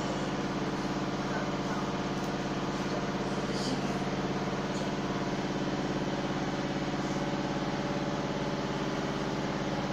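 A motor running steadily, giving a low, even hum that does not change in pitch or level.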